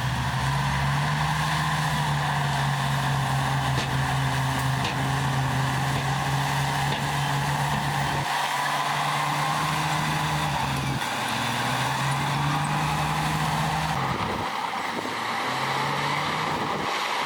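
Diesel engine of heavy earthmoving machinery running under work, its low note shifting and briefly dropping away a few times, with a wavering higher whine above it.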